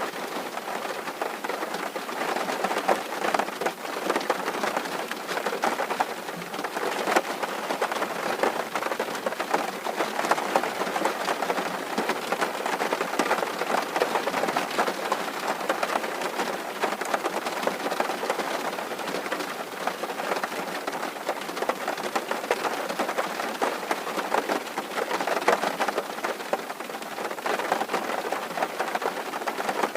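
Steady rain on a tin roof: a dense, unbroken patter of many small drops striking metal.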